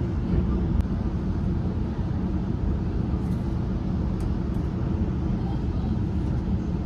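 GO Transit commuter train running, a steady low rumble heard from inside the passenger coach.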